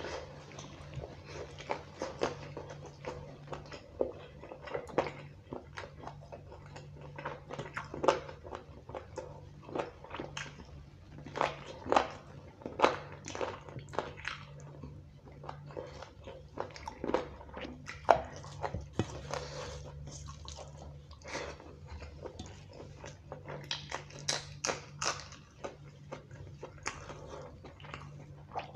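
Close-up eating sounds of a man chewing and biting on a chicken drumstick and mouthfuls of khichuri and chicken curry eaten by hand: many short, irregular mouth clicks and chewing noises. A faint steady low hum runs underneath.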